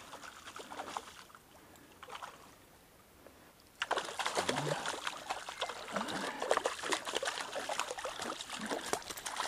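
Hooked trout thrashing and splashing at the water's surface during the fight, a burst of irregular splashing that starts about four seconds in after a quieter stretch of stream noise.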